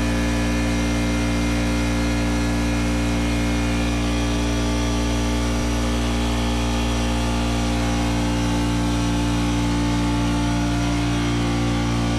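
An engine running steadily at a constant speed, holding one even pitch with no revving.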